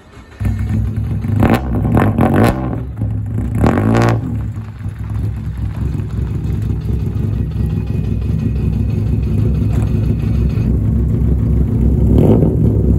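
Nissan Silvia S13's naturally aspirated 2.2-litre four-cylinder, on four individual throttle bodies and a straight-pipe exhaust, idling loudly. It comes in suddenly about half a second in and is blipped three times in the first four seconds, then idles steadily, with one more blip near the end.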